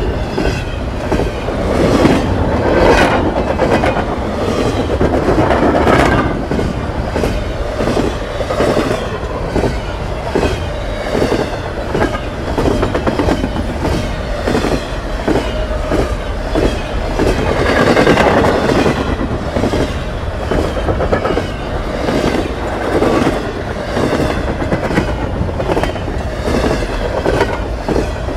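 Double-stack container train's loaded well cars rolling past, steel wheels clicking over the rail joints in an even rhythm over a continuous rumble that swells and eases as the cars go by.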